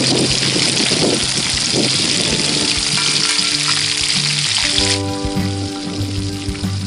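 Mudskippers deep-frying in a wok of hot oil, a dense steady sizzle, as a metal spatula turns them. The sizzle drops sharply about five seconds in.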